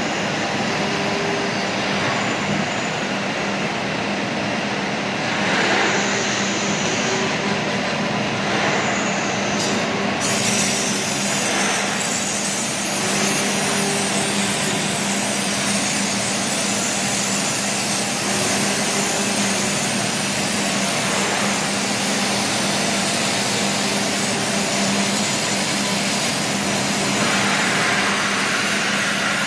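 ATC CNC router cutting MDF: a steady, loud machining noise with a low steady hum and a faint tone that swells and dips every few seconds.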